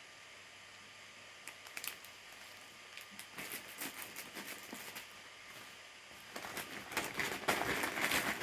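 Plastic packaging handled: a few light clicks and rustles at first, then steadier crinkling of a plastic bag building toward the end.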